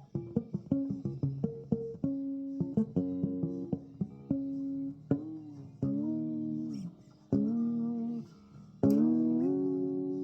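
Bass guitar played solo: a run of quick plucked notes, then from about five seconds in a few longer held notes that bend and slide in pitch.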